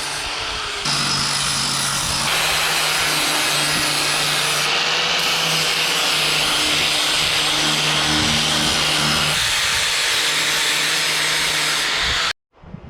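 Angle grinder running steadily against the painted metal roof rack, grinding the paint off down to bare metal. The level jumps a couple of times early on, and the sound cuts off abruptly near the end.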